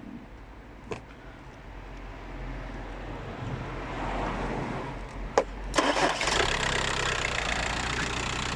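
Car starter motor, fed directly with a power-probe tool to bypass the faulty starter circuit, cranking the engine, which catches about six seconds in and settles into a steady idle. A click comes about a second in and another just before the engine fires.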